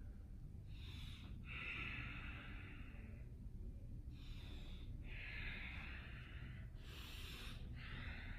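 A man breathing deeply and audibly through a held yoga split stretch: three slow breath cycles, each a short rush of air followed by a longer one, over a low steady room hum.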